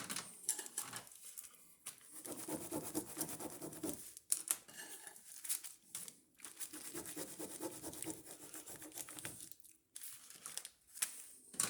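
Ballpoint pen scribbling on paper in uneven strokes with short pauses, trying out a dried-out pen revived by brief microwave heating.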